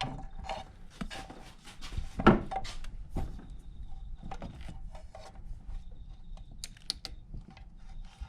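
Hand tools knocking, scraping and clicking against metal engine parts, irregularly, with one louder knock about two seconds in, over a faint steady hum.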